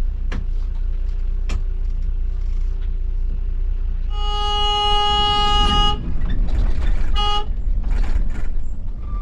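Low, steady diesel rumble of a Volvo B9R coach heard from the driver's cab. About four seconds in, a bus horn sounds one long blast of about two seconds, then a short toot about a second later.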